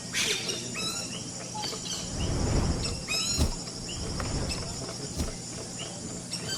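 Yellow-rumped caciques calling: a busy mix of short whistles, clucks and chirps, with a quick rattling run of repeated notes a little past the middle.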